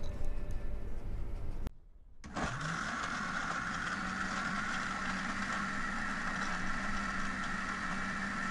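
Electric countertop blender running, grinding crushed ice into a banana-orange smoothie. About two seconds in it stops briefly, then spins up with a rising whine and settles into a steady hum.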